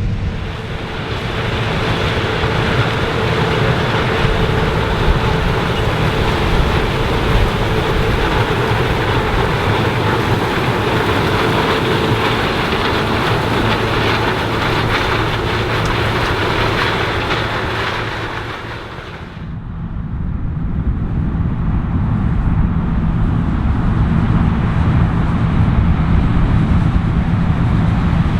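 New Holland CR 9.90 twin-rotor combine running steadily while harvesting corn. About two-thirds of the way through, the sound changes suddenly: the higher hiss falls away and a lower, steady hum is left.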